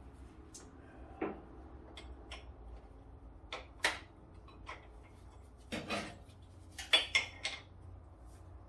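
Scattered, irregular metallic clinks and clicks of hand tools and steel suspension parts being handled during front suspension reassembly. A few are louder knocks, about four seconds in and again around seven seconds.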